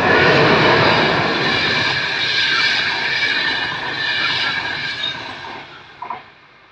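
Intercidades passenger train hauled by a CP 5600-class electric locomotive passing close at speed: a loud rush of wheels and carriages on the rails that fades away over the last couple of seconds.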